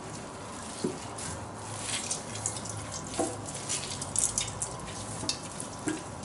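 Faint wet, sticky crackling and scattered small clicks as soft cooked food is crushed and pressed by hand, its syrupy juice starting to come out.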